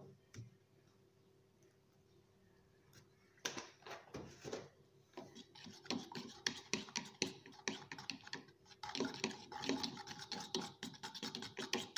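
Metal fork beating pancake batter in a glass measuring jug, with quick scraping and clinking strokes against the glass. The stirring starts about three and a half seconds in and keeps up a fast, uneven rhythm.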